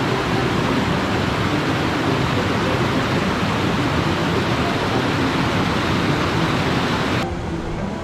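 Small mountain-stream cascade, water rushing loudly and steadily over boulders. About seven seconds in it cuts abruptly to a softer stream sound with background music.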